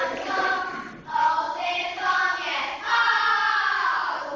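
Children singing together in a school talent-show number, holding long notes, with the pitch sliding down near the end.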